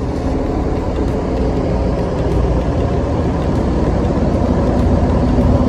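Diesel coach engines running close by, a steady low rumble that grows a little louder toward the end as a bus moves across the lot.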